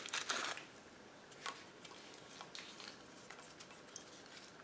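Brief crinkle of a Maggi stock cube's foil wrapper being unwrapped and crumbled, then a few faint scattered ticks.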